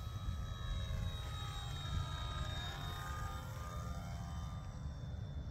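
Electric RC Hawker Hurricane's brushless outrunner motor and propeller whining on a low, close pass, the pitch lines sweeping as the plane goes by, over a low rumble. The motor is at about half throttle and noticeably down on power on a weaker 2-cell battery.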